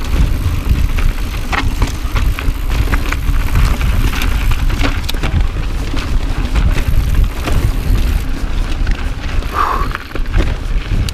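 Mountain bike ridden fast down rocky singletrack, heard from a handlebar-mounted action camera: heavy wind rumble on the microphone, with the tyres and frame clattering in many sharp knocks over the rock.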